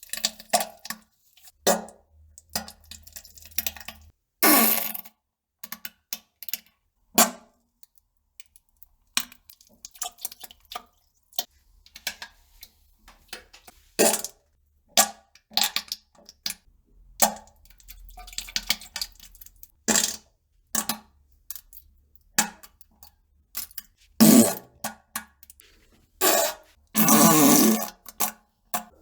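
Irregular series of short fart and poop sounds, sudden and uneven in spacing, with a longer, louder one near the end.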